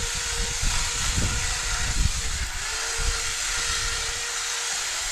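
Electric drill running steadily with a whine that sags briefly now and then, drilling out the rivets of a motorcycle exhaust muffler, with hiss and scattered low knocks.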